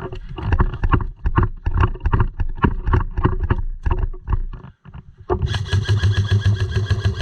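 Irregular knocks and rustling, then, about five seconds in, an airsoft electric gun firing a long full-auto burst: a steady motor whine with a very fast, even rattle of shots.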